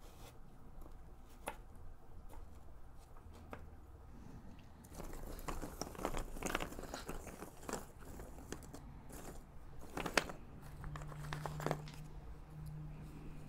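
Cardboard jigsaw puzzle pieces handled in a cardboard box. Single pieces click as they are picked up and dropped. About five seconds in there is a longer, dense crackly rustle as fingers stir through the heap of loose pieces.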